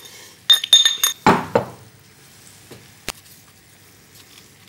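Pestle working juniper berries in a small mortar: a few ringing clinks about half a second in, then a short grinding scrape as the berries are crushed. A single sharp knock comes about three seconds in.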